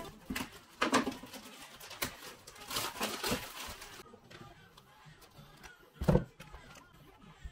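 Handling of raw oxtail pieces: light knocks and rustles as they are lifted off a tray and put into a plastic bowl, with one heavier thud about six seconds in as a piece drops into the bowl.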